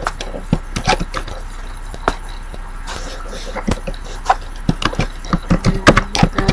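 Computer keyboard keys clicking in an irregular run of keystrokes: typing.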